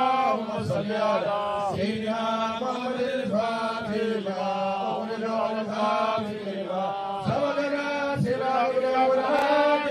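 Group of men chanting an Islamic devotional litany together in a melodic line, over a steady low held note.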